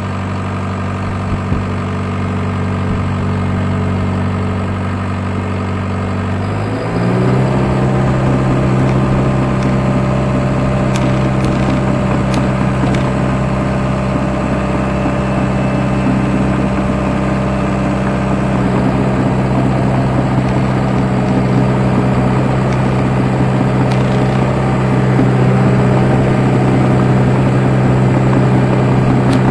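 Crawler dozer's diesel engine running steadily at low speed, then revving up about seven seconds in and holding at a higher, louder working speed.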